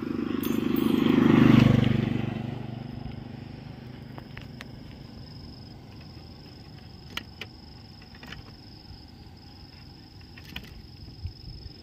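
A motor vehicle passes close by: its engine rises to a peak about a second and a half in, then fades away over the next few seconds. After it, a thin steady high tone and a few faint clicks.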